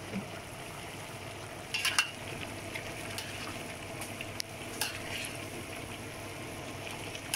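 Metal spatula scraping and clinking against a large pan while stirring chicken livers and intestines, over a steady sizzle of the food cooking. The loudest clinks come about two seconds in, with a few more a couple of seconds later.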